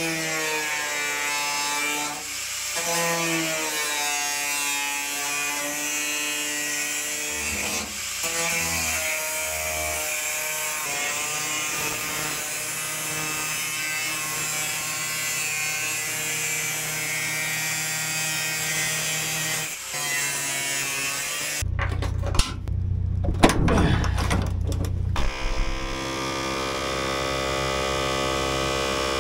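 DeWalt angle grinder with a cutoff wheel cutting through the rusty steel floor pan of a truck cab. Its motor whine dips in pitch each time the wheel bites into the metal and recovers as it eases off. About 22 seconds in, the grinding stops and gives way to a few knocks.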